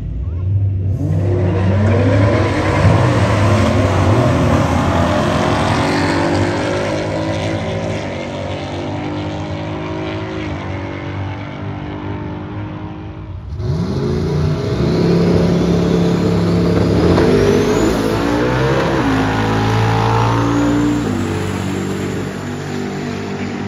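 Drag-racing cars' engines revving and accelerating hard, the pitch climbing again and again as they pull through the gears. The sound breaks off suddenly about halfway through, and a second run of engines accelerating starts.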